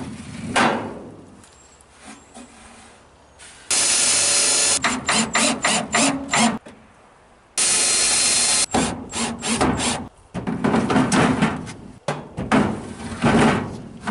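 Cordless drill driving screws into a wooden board: two steady runs of about a second each, each followed by a string of short bursts as the screw is set. Knocks and scrapes near the end as plastic milk crates go back onto the wooden shelf.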